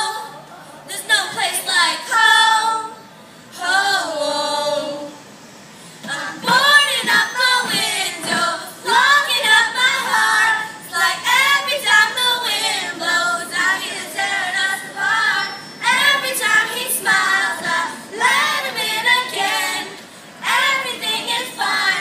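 Youth glee club choir singing a pop song together, mostly girls' voices. The phrases are broken by short pauses in the first few seconds, and the singing runs steadily from about six seconds in.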